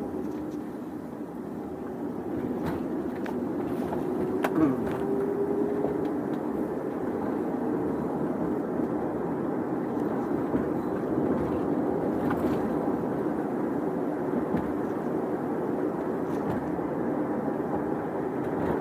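Steady road and engine noise inside a moving car's cabin, growing a little louder a few seconds in.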